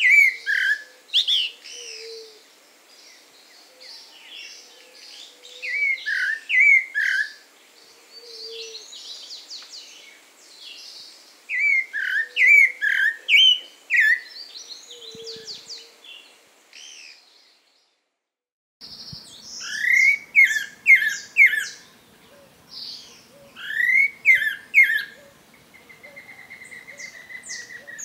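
Pale-breasted thrush (Turdus leucomelas) singing: short melodious phrases of slurred, falling whistled notes, repeated every few seconds, with fainter high twittering between phrases. About two-thirds of the way through, the sound drops out completely for a moment, then the song resumes; one phrase near the end trails into a long held whistle.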